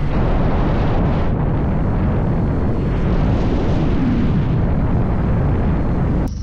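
Kawasaki W800 air-cooled parallel-twin motorcycle engine running on the road at speed, heard under loud wind rush on the helmet or bike microphone, with a short rise in engine pitch about four seconds in.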